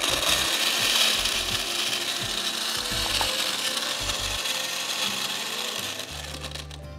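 Electric blender running, churning ice and milk, with a steady harsh whirring that fades away over the last second or two.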